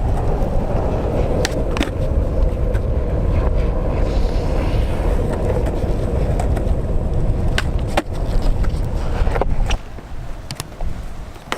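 Skateboard wheels rolling steadily over pavement with a loud rumble and occasional sharp clicks; the rolling falls away about ten seconds in.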